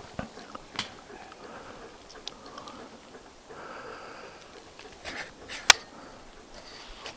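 Footsteps and rustling through tall grass and low brush, with scattered small snaps and one sharp click about five and a half seconds in.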